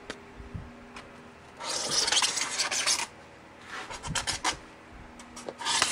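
Felt-tip marker rubbing and scratching across a styrofoam sheet as an outline is drawn on it, in three strokes, the first the longest.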